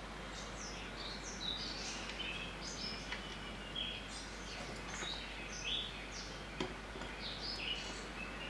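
Small birds chirping, many short up-and-down chirps over a faint background hiss, with a few brief clicks, the sharpest about two-thirds of the way through.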